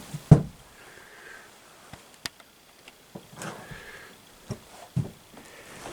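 Footsteps on old tongue-and-groove wooden floorboards: a few scattered knocks and light creaks, the loudest knock just after the start.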